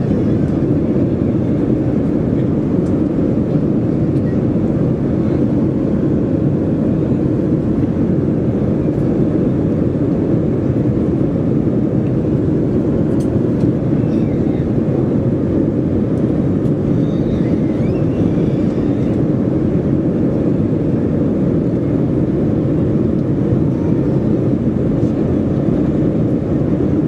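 Steady cabin roar of a Boeing 737-400 in the climb: its CFM56-3 turbofans at climb power together with airflow noise make an even, low rumble.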